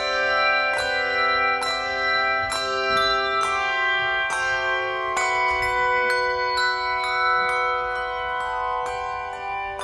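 Handbell choir playing a piece: handheld bells struck in turn about twice a second, their clear tones overlapping in sustained chords.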